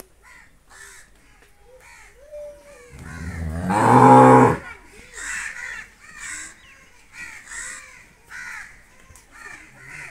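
Cow mooing once: one low call about a second and a half long, swelling to its loudest just before it stops.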